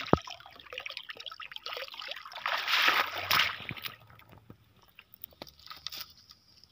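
Muddy shallow water splashing and sloshing as a hand scoop net is lifted out and drains through its mesh, loudest about three seconds in, with a sharp knock just after the start. After that only faint scattered ticks and rustles as the net is set down on the mud.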